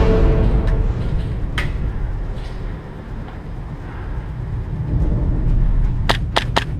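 Steady low wind and handling rumble on the microphone, with a few faint clicks, then three sharp cracks in quick succession near the end.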